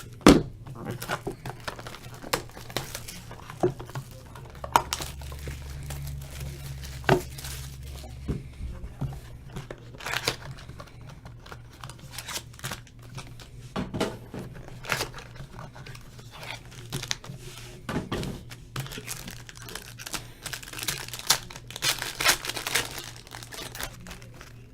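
Sealed trading card box being opened: plastic wrapper tearing and crinkling, with cardboard packaging handled in a series of short rustles, clicks and knocks.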